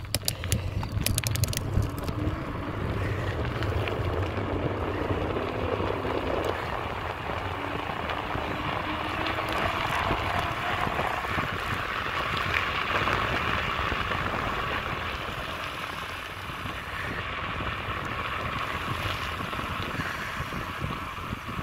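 Wind buffeting the microphone and tyre noise on asphalt from a moving vehicle, with a few sharp clicks in the first two seconds.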